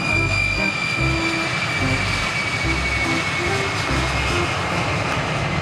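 Jet engines of a four-engined, rear-engined airliner of the Ilyushin Il-62 type rolling down a runway: a steady jet rush with a high whine that sinks slightly in pitch.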